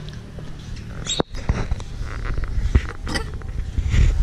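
Irregular dull thumps and knocks of a small child crawling on hands and knees through a stainless-steel playground tunnel, the loudest knock near the end.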